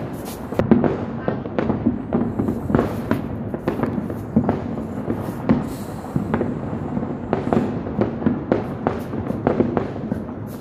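Many fireworks going off at once: a dense, unbroken run of irregular bangs and pops.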